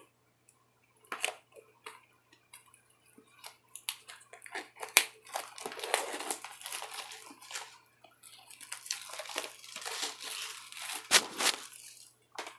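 Handling of a DVD gift set's cardboard slipcover and plastic case as the case is slid out: rustling and scraping of card and plastic with scattered taps and clicks, the sharpest about five seconds in and another near the end.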